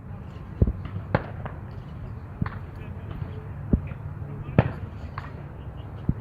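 Shotgun shots from neighbouring skeet fields, about six sharp pops at irregular intervals, over a steady low hum and faint background voices.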